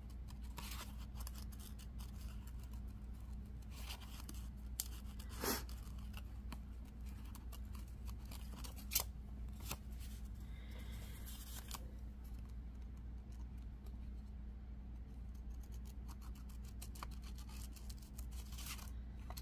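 Scissors cutting out a small scarab image printed on matte photo paper, a run of small snips with a few sharper clicks, over a steady low hum.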